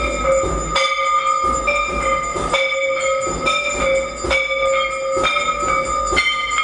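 Temple bells and gongs ringing continuously during the aarti, struck about once a second, over a low pulsing drum beat.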